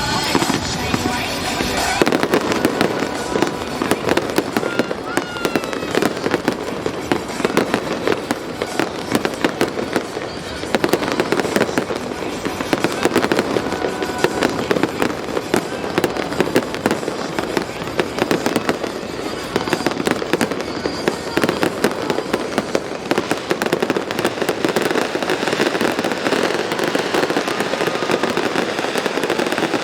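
Music for about the first two seconds, then a fireworks display: dense, continuous popping and crackling with many sharp bangs scattered through it.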